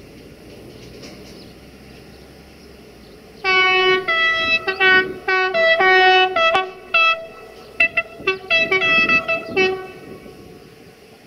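Locomotive horn sounded in a long blast followed by a rapid, irregular string of short toots, switching between a lower and a higher note, for about six seconds, starting about three seconds in.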